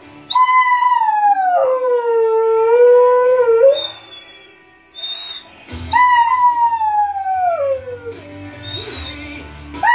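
Belgian Shepherd (Groenendael) howling along to a song: two long howls, each starting high and sliding down in pitch, the first held about three seconds, and a third beginning near the end. Recorded music plays underneath.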